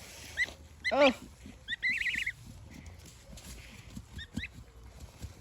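Young chicks peeping in short high chirps: one chirp, then a quick run of chirps about two seconds in and a couple more near the end, over soft rustling and shuffling in straw.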